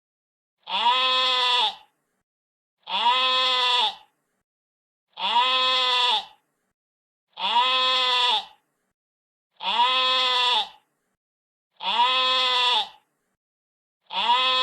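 A sheep bleating: a call of about a second, repeated seven times at an even pace of roughly one every two seconds, each bleat the same shape.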